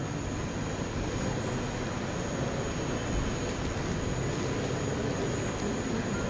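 Steady rushing background noise of a large hall, with a faint high whine and no speech.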